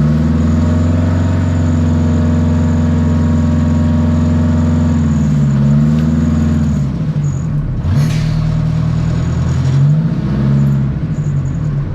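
Wheel dozer's diesel engine running hard. Its pitch sags and recovers twice, the second half is rougher, and a brief rushing noise comes about eight seconds in.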